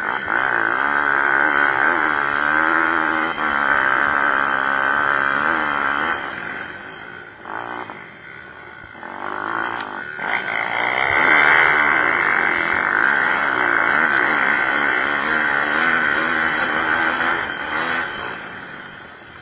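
Pit bike engines revving hard as the bikes race, the engine note rising and falling with throttle and gear changes. It fades about a third of the way in, then returns loud.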